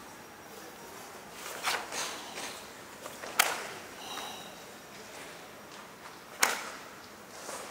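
Karate gi snapping sharply twice, about three seconds apart, as the karateka whips out techniques in a kata. Softer swishes and rustles of the uniform and bare feet on the mat fall in between.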